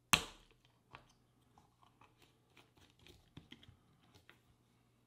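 Bottle cap being twisted off and a nozzle cap fitted onto a bottle of smoke-machine fluid: one sharp click just after the start, then light plastic clicks and crackles from the handling.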